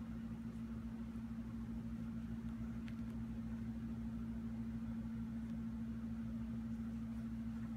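A steady low machine hum held at one even pitch, with a faint tick about three seconds in.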